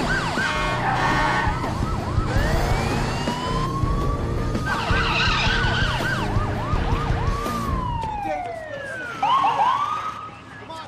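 Emergency vehicle sirens sounding over a low rumble, switching between a fast yelp and a slow rising and falling wail, with more than one siren overlapping. The rumble drops away about eight seconds in, leaving the yelping siren.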